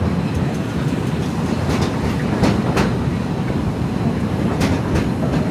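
Walt Disney World Railroad narrow-gauge steam train rolling along the track, heard from a passenger car: a steady rumble with a few sharp clacks as the wheels pass over rail joints.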